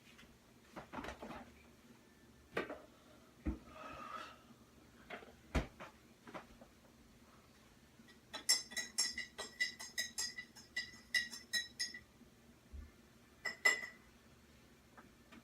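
Hard objects being handled: scattered knocks and clicks, then a quick run of bright, ringing clinks about eight to twelve seconds in, and one more clink near the end.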